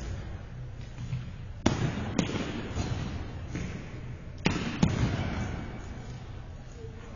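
Sharp, echoing knocks of balls being hit with sticks and bouncing off the rink boards in a large ice arena: two pairs of hits, about half a second apart, near the second and fifth seconds, over a steady arena hum.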